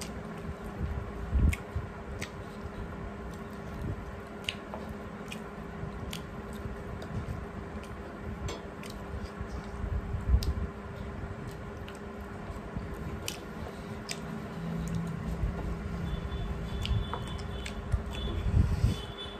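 Two people eating rice and curry with their bare hands from metal plates: wet squishing of food being mixed by fingers, and chewing, with scattered light clicks against the plates.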